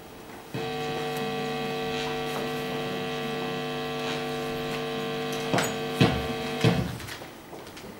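Loud electrical mains buzz over the lecture hall's microphone and sound system, cutting in abruptly about half a second in and cutting off about a second before the end, heard while the laptop at the lectern is being handled. A few sharp knocks come near the end of the buzz.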